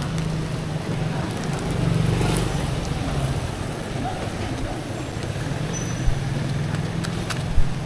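Steady low hum over outdoor street noise, with two short knocks near the end.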